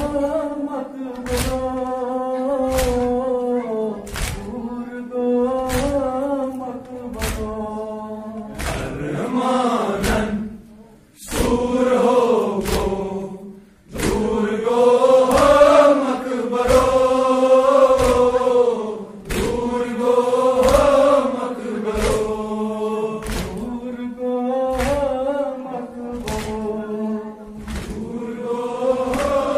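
A group of men's voices chanting a nauha (mourning lament) together, with the steady slap of hands striking chests in matam, about three beats every two seconds. The chant breaks off briefly twice in the middle.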